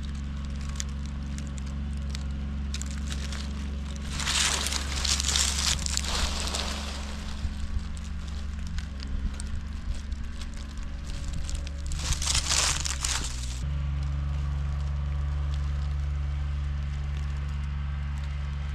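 Engine of a golf-course maintenance vehicle running steadily, its note shifting about halfway through and again about two-thirds of the way through. Two spells of loud crackling hiss come over it, the first about four seconds in and the second a little past halfway.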